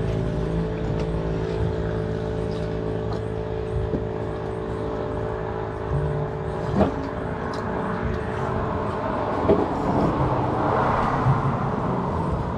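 Motor vehicle engine running nearby with a steady low hum, then a rushing traffic noise that swells about ten seconds in. A couple of sharp clinks of bowls and spoons on the table are heard in between.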